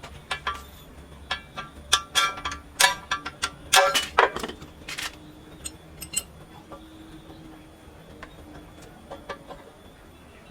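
Metal pieces clanking and clinking against each other: a run of irregular knocks, some ringing briefly, loudest around two to four seconds in, then a few fainter knocks.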